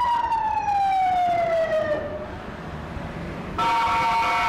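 Emergency vehicle siren sweeping down in pitch for about two seconds. After a short lull, a steady horn of several notes sounds from about three and a half seconds in.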